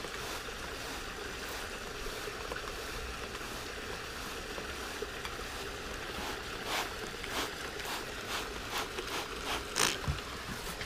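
Trigger spray bottle misting water into a glass terrarium: a run of short hissing squirts, about two a second, beginning about six seconds in, over a steady background hiss.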